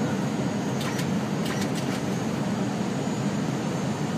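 Steady engine and airflow noise in an airliner's cockpit on final approach, with a faint high whine running through it and a few short ticks about one to two seconds in.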